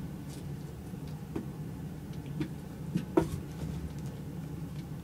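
Soft thumps and taps of a cat pouncing and batting a small toy about on a rug, about five in all, the loudest a little after three seconds in, over a steady low hum.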